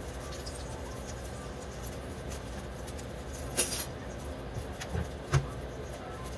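Steady low hum with three short, sharp taps in the second half, the last the loudest, as olive oil is added to a nonstick frying pan.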